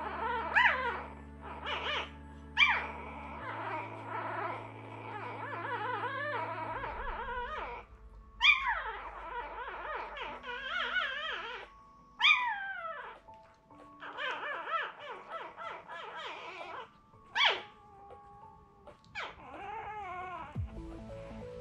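Newborn Irish setter puppies squealing and whining, many short high cries that slide down in pitch, a few louder squeals among them, over background music with low held notes.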